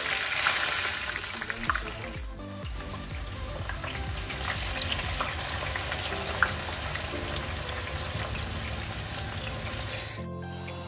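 Sliced onions frying in hot ghee in a frying pan, a dense sizzle that is loudest in the first two seconds and then holds steady. It breaks off abruptly near the end.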